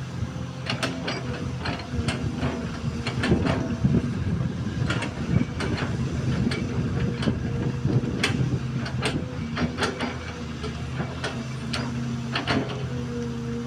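XCMG XE215C excavator's diesel engine running steadily under a constant higher hum, with irregular sharp metallic clanks and knocks from the working machine every second or so.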